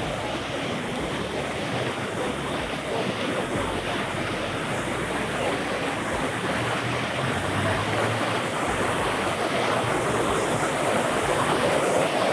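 Fountain jets splashing steadily into a shallow pool, a continuous rush of falling water that grows a little louder near the end.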